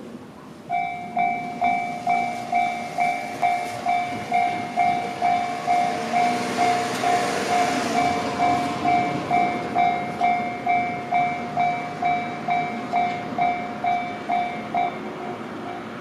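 Japanese railway level crossing's electronic warning bell starting up and ringing steadily at about two strokes a second as the crossing closes, turning quieter near the end.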